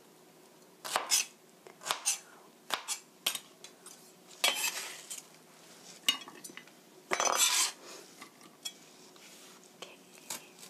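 Kitchen knife dicing onion on a plastic cutting board: separate sharp chops in the first few seconds. Then come two longer scrapes as the blade sweeps the diced pieces off the board onto a plate, with a knock of the knife against the plate between them.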